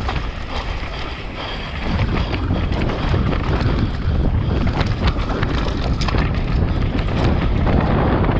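Wind buffeting the microphone of a camera on a mountain bike descending a dirt trail, with a steady low rumble and frequent clicks and knocks of the bike rattling over the rough ground.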